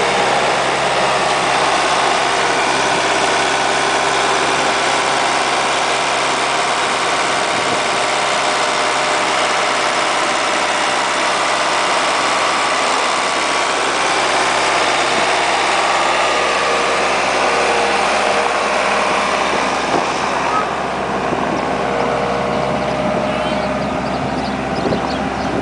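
A loader engine running steadily at a constant speed. The high hiss drops away about twenty seconds in.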